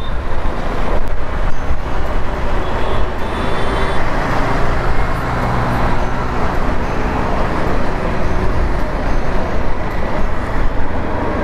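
2024 KTM 390 Duke cruising steadily in sixth gear at about 55 km/h, its single-cylinder engine running under a loud, steady rush of wind and road noise heard from the rider's position.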